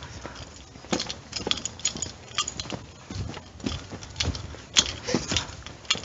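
Footsteps of people walking on a gritty paved lane: irregular, overlapping steps, several a second.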